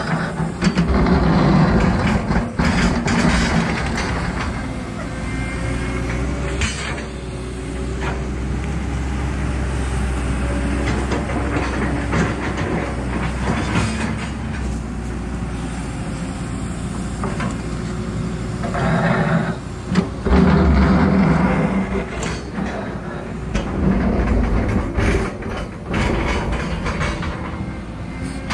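Backhoe engine running steadily while its bucket digs into rocky dirt, with louder surges of engine and scraping, clanking bucket noise several times.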